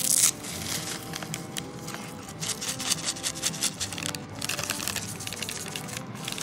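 Paper instant-oatmeal packet crinkling and crackling as it is squeezed and shaken empty, with dry oat flakes rushing out into a stainless steel pot at the start.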